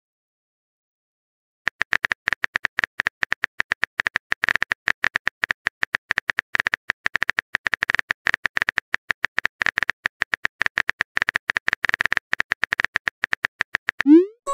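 Simulated phone keyboard typing sound effect: a rapid run of soft key clicks as a text message is typed out, starting after a second or two of silence. A short rising whoosh, the message-send sound, begins at the very end.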